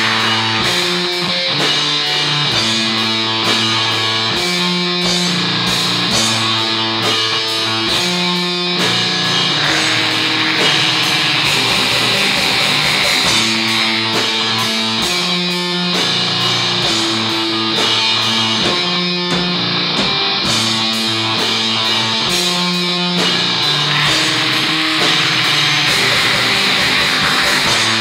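Raw black metal: distorted electric guitar chords that change about once a second over constant drumming.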